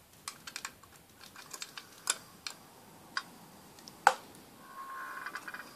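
Light metallic clicks and taps of the candle burner being set into a tin pop-pop boat, with one sharper click about four seconds in. Near the end the boat's flash-steam boiler starts up with a fast, steady buzzing putter as the water in it is heated to steam.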